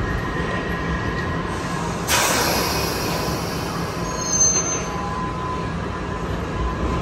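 London Underground Piccadilly line 1973 Stock train standing at the platform with a steady whine. About two seconds in, a sudden loud hiss of air sets in and fades over the next couple of seconds. A brief high squeal follows about two seconds later.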